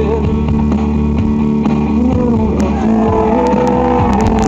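Music with loud, sustained held notes.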